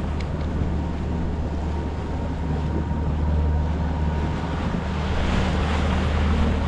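A sailboat's engine running steadily under motor, with water rushing along the hull and wind on the microphone. The rush of water and wind grows louder about five seconds in.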